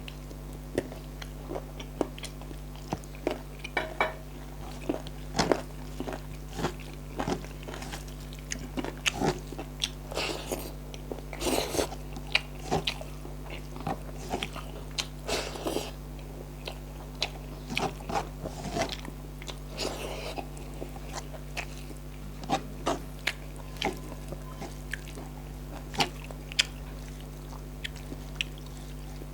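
A person eating close to the microphone: chewing and biting with many irregular wet clicks, smacks and crunches, over a steady low electrical hum.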